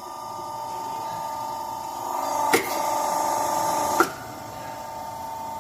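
Y120D hydraulic hose crimping machine running with a steady whine. About two and a half seconds in there is a sharp click, and the whine grows louder under load for about a second and a half as the machine crimps. It ends in another sharp click about four seconds in and falls back to its steady level.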